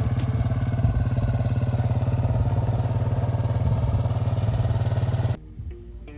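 Dirt bike engine running steadily at idle, with no revving. About five seconds in it cuts off abruptly, giving way to background music with plucked bass notes.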